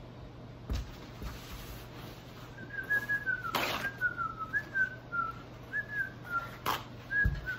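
A person whistling a wandering tune of short, quick notes, starting about two and a half seconds in. Paper towels are torn off a roll, with a sharp rip about halfway through and another near the end.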